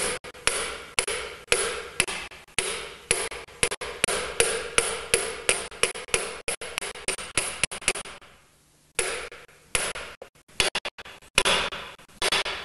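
Ball-peen hammer tapping a steel block to drive a pinion seal into a Ford 9-inch pinion support housing: sharp metal-on-metal strikes about three a second, each with a short ring. The tapping stops briefly about two-thirds of the way through, then resumes more irregularly.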